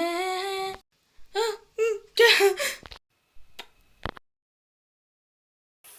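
A woman's manic crying sound effect: a held wailing cry, then a string of short sobbing cries over the next couple of seconds, followed by a click and then silence.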